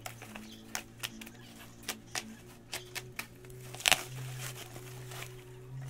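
Bubble-wrap plastic packaging crackling and tearing as it is pulled off a cardboard box by hand: scattered sharp crinkles, the loudest about four seconds in.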